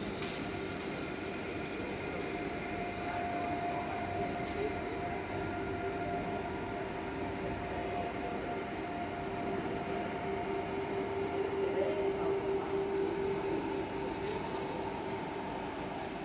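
SNCF TER double-deck electric train giving off a steady electric hum: a low droning tone with a fainter higher tone and a thin high whine over a noise bed, growing a little louder about three-quarters of the way through.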